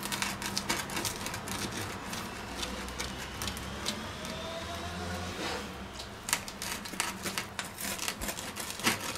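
Pizza cutter slicing through the crisp, freshly baked crust of a pizza on a wooden board: a run of crackling crunches and clicks.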